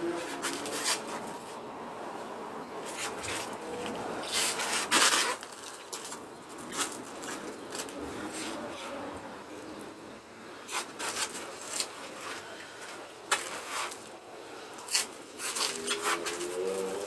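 Concrete blocks scraping and knocking as they are handled and set in place, a string of short knocks and rasps with one louder, longer scrape about five seconds in.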